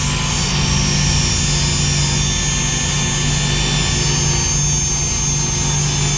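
Table saw running steadily while ripping a board that is pinching the blade as the kerf closes, so the cut feeds slowly. A steady low hum with a high whine over it.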